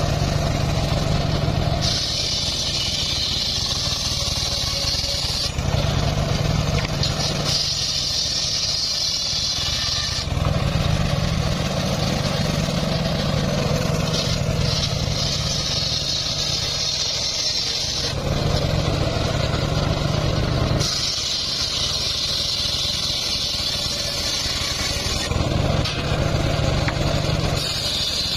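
Homemade engine-driven table circular saw ripping mahogany boards. The blade's high cutting whine comes in repeated passes of a few seconds each. Between passes the saw's engine runs steadily and low.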